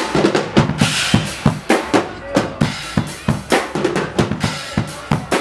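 Guggenmusik carnival band's drum section playing, bass drum and snare beating a steady, driving rhythm of about four strokes a second.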